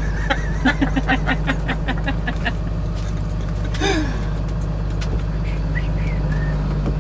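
Steady low hum of an idling truck engine. Over it, a man laughs in quick rhythmic bursts for the first couple of seconds, and there is a brief vocal exclamation about four seconds in.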